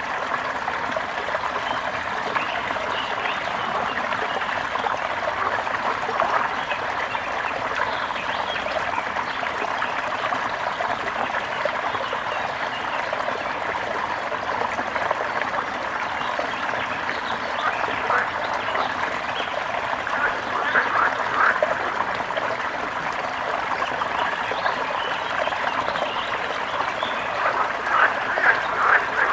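Brook water babbling and gurgling steadily. About two-thirds of the way in, and again near the end, a run of quick, short crackling notes rises over the flow.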